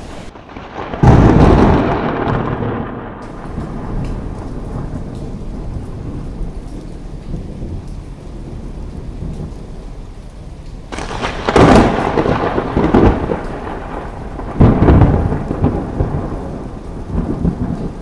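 Thunder over steady rain: a sharp, loud crack about a second in that rumbles away over a couple of seconds, then two more loud crashes with rolling rumbles about two thirds of the way through and again a few seconds later.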